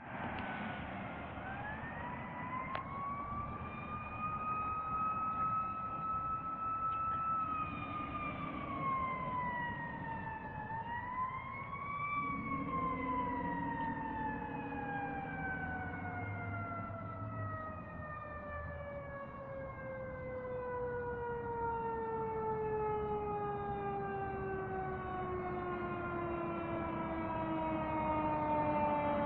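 Fire engine siren wailing. It rises and holds, dips and rises again, then falls slowly and steadily in pitch for about seventeen seconds, growing louder near the end.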